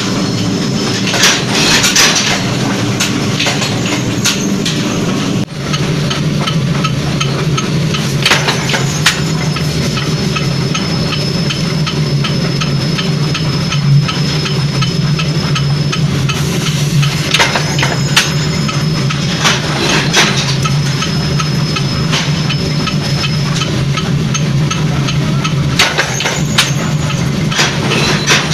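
Forging power press running with a steady low machine hum, and heavy metal-on-metal blows as the ram strikes hot steel in the dies, several times over. A fast steady ticking runs under it.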